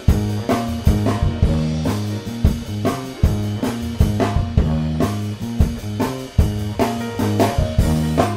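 Instrumental background music with guitar and drum kit, a steady beat over a stepping bass line.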